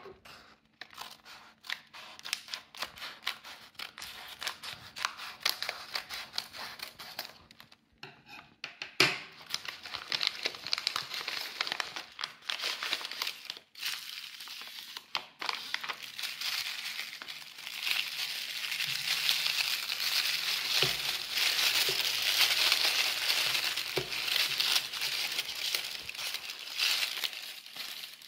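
Scissors snipping across a padded paper mailer, then paper and wrapping crinkling and rustling as the contents are slid out and unwrapped. The crinkling grows denser and loudest over the last ten seconds.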